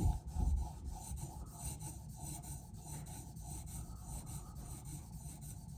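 Diamond plate of a TS Prof Cadet guided knife sharpener stroked back and forth along a knife edge, an even rhythmic scraping about one and a half strokes a second. A single knock sounds at the very start.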